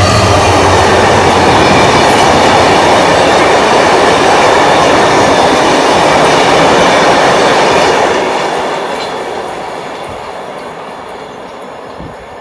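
Freight train passing close by: wheels rolling on the rails, loud and steady for about eight seconds, then fading away.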